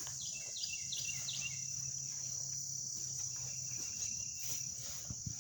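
Outdoor insect chorus of crickets: a steady high-pitched buzz, with a few short falling chirps in the first second or so.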